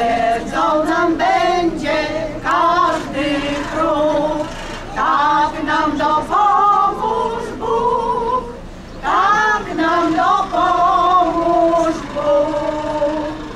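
A small veterans' choir of mostly women singing a song together in one melodic line, with held notes, the last phrase fading just before the end.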